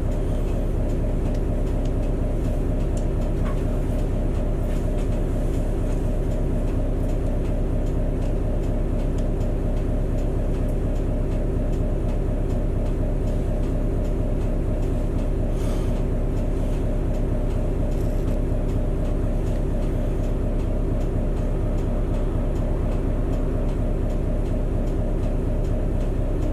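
City bus engine idling while the bus waits at a red light, heard from inside the cabin as a steady low drone.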